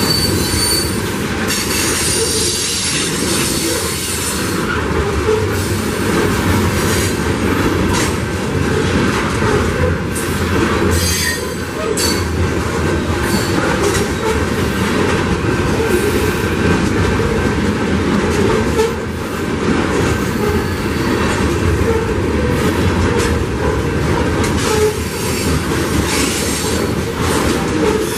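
Freight train of covered hopper cars rolling past: a steady rumble and rattle of steel wheels on rail, with scattered knocks as wheels cross rail joints and a few brief high-pitched wheel squeals.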